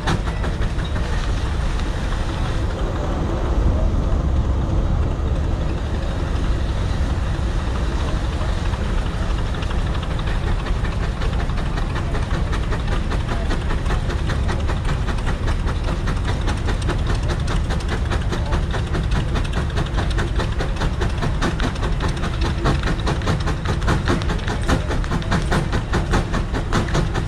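Case 150 hp steam traction engine working under heavy load on a prony brake, its exhaust beating in a fast, even rhythm together with the run of the lively flat drive belt.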